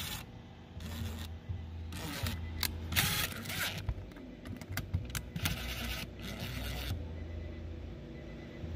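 Cordless DeWalt driver spinning in several short bursts as it drives the screws of an amplifier's speaker terminal block, with scraping of the bit and wire.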